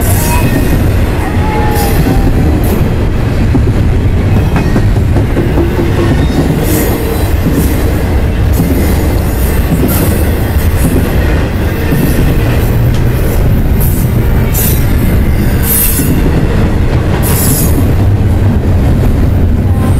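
Double-stack intermodal freight train cars rolling past close by: a loud, steady rumble of steel wheels on rail, with brief high-pitched wheel squeals several times.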